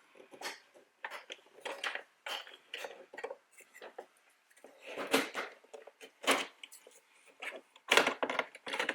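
Irregular clicks, knocks and rattles of plastic car door trim parts being handled and fitted by hand, with the sharpest knocks about five, six and eight seconds in.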